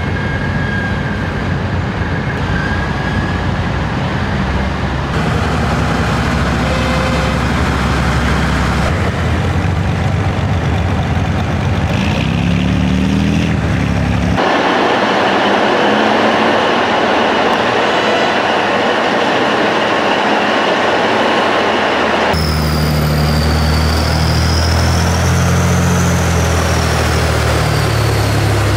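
Heavy diesel engines of Topol-M road-mobile missile launcher trucks running as the vehicles move off, heard in several cut-together shots. One stretch, in the middle, is a rushing hiss with little low rumble.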